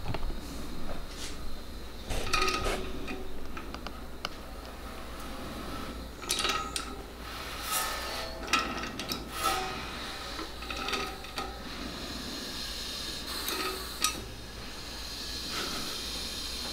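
Scattered metallic clinks and rubbing from hand work on an engine, coming in clusters: the crankshaft of a GT500 V8 being turned by hand until the piston meets a piston stop, while degreeing the cams.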